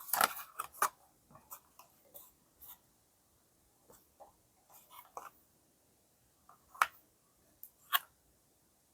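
Toy car packaging being handled and opened: scattered scratchy rustles and sharp clicks of plastic and card, the loudest in the first second and twice near the end.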